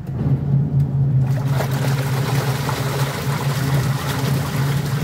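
Washing machine agitating a load of laundry in soapy water: a steady motor hum under churning, splashing water, which gets brighter about a second in.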